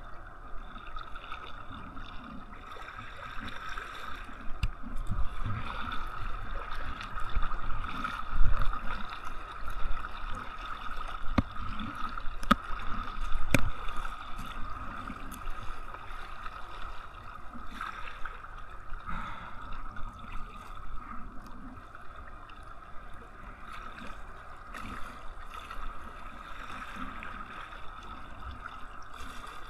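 Sea water sloshing and gurgling against a kayak as it is paddled, with irregular low thumps of water on the hull and two sharp knocks about halfway through.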